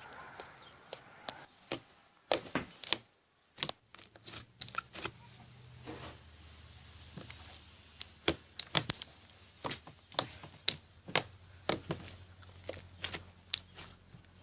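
Slime being squeezed and stretched by hand, giving off irregular sharp pops and crackles, some of them loud. A faint low hum sets in about four seconds in.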